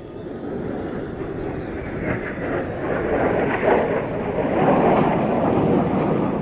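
Jet noise from Blue Impulse Kawasaki T-4 jet trainers flying past at a distance. It builds over the first couple of seconds and stays loud, peaking in the second half.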